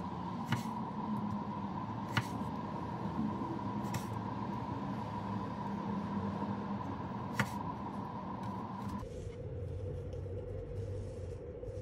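Chef's knife halving cherry tomatoes on a wooden cutting board: four sharp knocks as the blade comes down through the tomato onto the board, a couple of seconds apart. A steady background hum runs under them and drops in pitch about nine seconds in.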